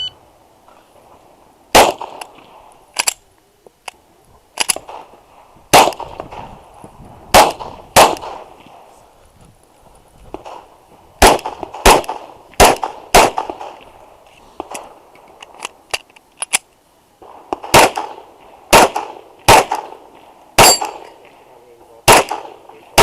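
Glock 34 9mm pistol firing a course of fire: about sixteen sharp shots in pairs and quick strings, with pauses of a second or more between groups. Some hits ring on steel targets.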